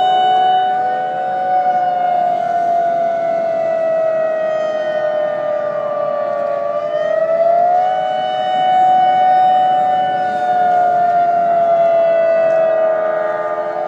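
Several outdoor warning sirens wailing together, their pitch rising, holding, then slowly sinking, twice over, with the different sirens slightly out of step. They are sounding a tsunami evacuation alarm.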